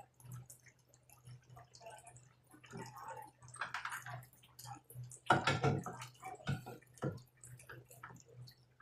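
Irregular clicks and knocks of hand tools working loose the bolts of a front-load washing machine's concrete counterweight, with a louder clatter about five and a half seconds in, over a faint steady low hum.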